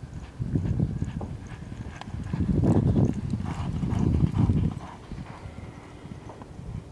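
Racehorse galloping on a dirt track: a quick, steady rhythm of hoofbeats on the dirt, loudest as the horse passes close in the middle and fading as it moves away near the end.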